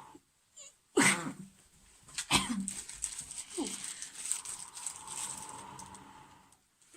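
A person blowing steadily into a smouldering tinder bundle of shredded juniper bark and charcloth to coax the ember into flame, ending in a long breathy blow that stops shortly before the end. About a second in, and again a little after two seconds, come two sudden loud bursts.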